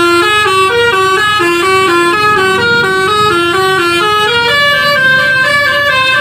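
Bus "telolet" musical horn playing a quick tune of short notes that step up and down in pitch.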